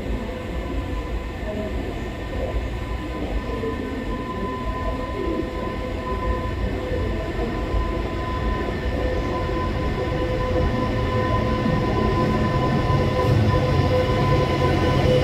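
Deutsche Bahn class 101 electric locomotive pulling an Intercity train away on departure: a low rumble with a steady hum, slowly growing louder.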